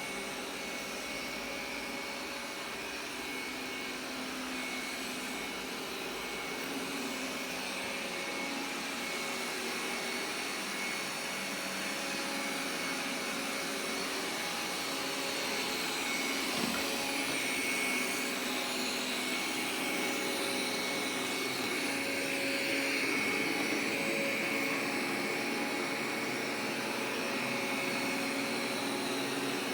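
Vacuum cleaner running steadily throughout, its motor noise carrying a steady high whine and growing slightly louder over time. There is a single light click about halfway through.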